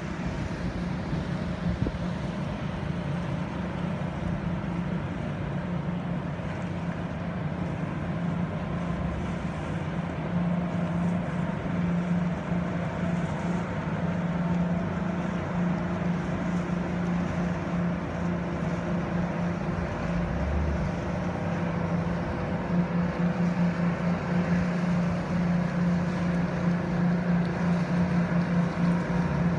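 Motor yacht engines running as the boat cruises past at low speed: a steady low drone that grows somewhat louder in the last several seconds as the yacht comes close.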